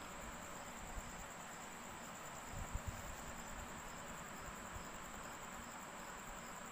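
Faint, steady insect chirping, a high even trill under a background hiss, with a few soft low thumps about two and a half seconds in.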